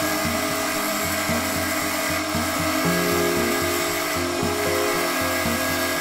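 Wood lathe spinning while a hand-held chisel shaves the end of a wooden blank, a steady cutting hiss with no breaks. Background music with a steady beat plays underneath.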